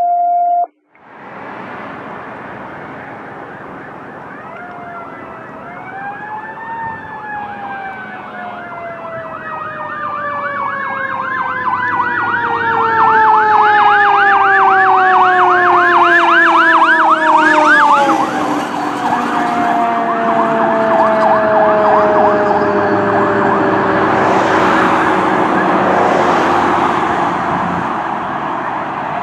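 Fire engine siren: a wail that rises and then slowly falls, with a fast yelp over it through the middle, loudest as the 2004 E-One pumper passes. Engine and road noise follow as it drives away. A brief steady tone sounds at the very start.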